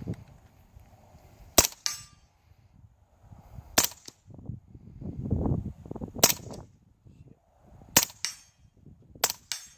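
Integrally suppressed 9mm firearm fired five times at uneven intervals of about two seconds. Each suppressed shot is a short, sharp crack, most followed a moment later by a fainter second crack.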